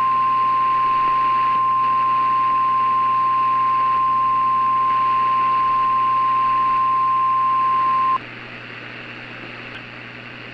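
NOAA Weather Radio 1050 Hz warning alarm tone: a single steady, piercing beep that cuts off sharply about eight seconds in, leaving a steady radio hiss.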